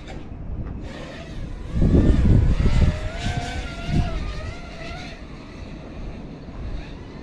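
FPV quadcopter's brushless motors and propellers whining, their pitch rising and falling with the throttle. Gusts of wind noise rumble on the microphone, loudest about two seconds in and again briefly around four seconds.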